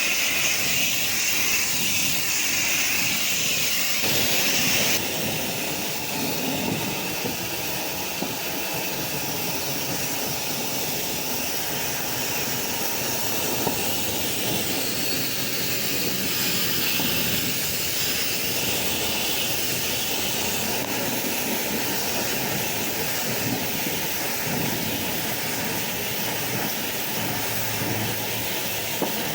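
Pressure washer spraying a steady hiss of water while rinsing down after a cleaning solution. The spray's hiss turns a little duller about five seconds in.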